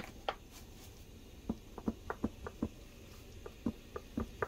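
Pepper dispenser being worked over a pan of beef, giving a run of light, irregular clicks of about two or three a second, starting about a second and a half in, over a faint hiss.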